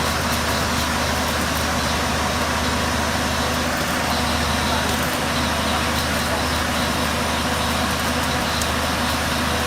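KCM-007 truck-mounted flash-butt rail welding complex with its K922-1 head at work: a steady low hum from its power unit under a continuous dense crackling hiss, as of the flashing stage of the weld.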